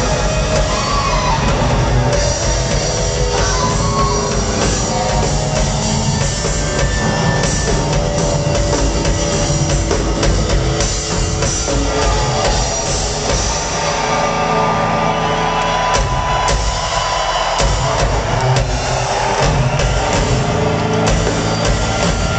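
Live rock band playing loud: drum kit and electric guitars, with no vocal line standing out.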